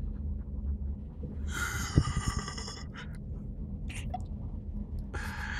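Steady low rumble of wind buffeting the microphone on a ship's deck in heavy seas, with a low hum under it. Two hissing rushes come about a second and a half in and near the end, and a sharp knock comes about two seconds in.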